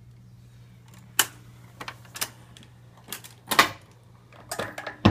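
Voice of Music model 307 automatic record changer going through its start cycle: a run of separate mechanical clicks and clunks as the changer mechanism moves the tonearm onto the record, over a low steady hum.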